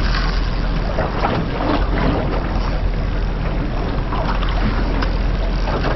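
Steady rushing noise of wind and choppy sea around a small boat, with wind on the microphone.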